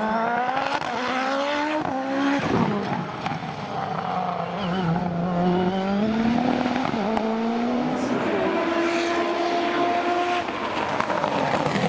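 Hillclimb race car's engine at full throttle, the revs climbing and then dropping back at each upshift, several times over.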